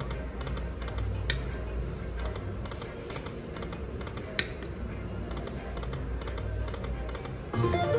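Aristocrat Dragon Link Panda Magic poker machine spinning its reels: rapid clusters of reel-spin clicks repeat throughout over a steady low hum, with a short pitched chime near the end as another spin begins.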